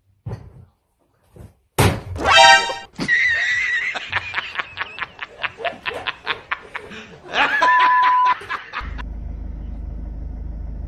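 Laughter with music, and a short steady beep about eight seconds in, then a steady low hum.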